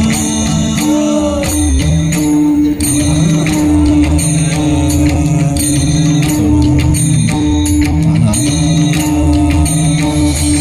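Background music with a held drone note, a pulsing low beat and jingling percussion.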